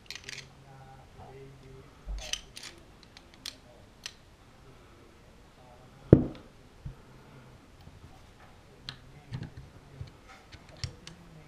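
Metal pistol slide parts being handled during cleaning: scattered light metallic clicks and taps, with one loud knock about six seconds in.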